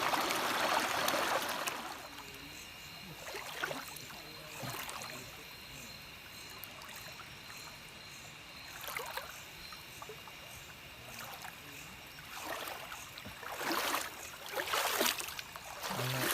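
River water splashing and trickling: a rush for the first couple of seconds, then several separate splashes, as if something is being moved or washed in the water. A steady high insect drone runs underneath.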